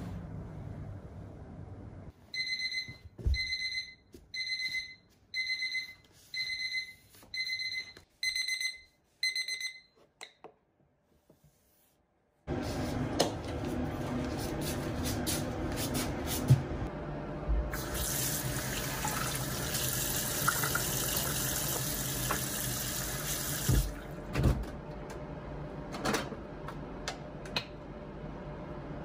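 An electronic alarm beeping about eight times, roughly once a second, then stopping. Later come shuffling slipper footsteps and clicks, then a washbasin tap running steadily for about six seconds before it is turned off, with a few knocks.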